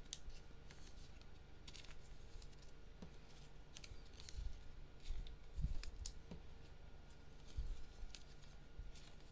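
Trading-card blaster box and packs being handled: scattered light clicks and taps of cardboard and wrappers, with a few soft thumps, the loudest about five and a half seconds in.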